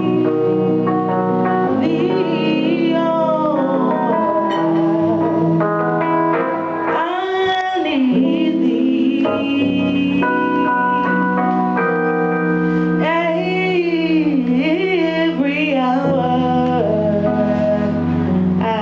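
A singer performing a song live with instrumental accompaniment: a held, wavering vocal melody over sustained chords.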